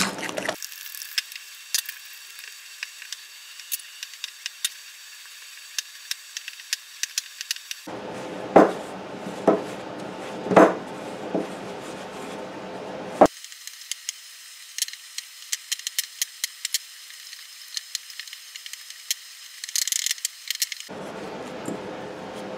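Dough being mixed and kneaded by hand in a glass bowl: rubbing with scattered light clicks and taps against the glass, and a few louder knocks about halfway through.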